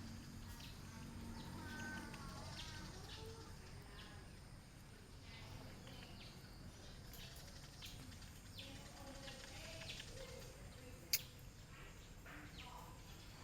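Faint outdoor background with scattered short bird chirps and one sharp click near the end.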